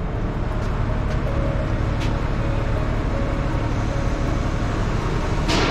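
TCM forklift engine running steadily while carrying a load, with a faint held tone through the middle and a short hiss near the end.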